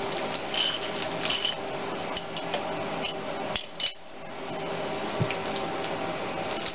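Light clicks and rustling as new head bolts are set into the aluminium cylinder head and a plastic parts bag is handled, over a steady background hum.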